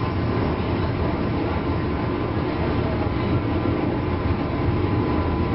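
Running sound inside a JR East 201 series electric train car (MoHa 201-254), heard from above its armature-chopper control equipment: a steady, loud rumble of wheels and running gear on the rails.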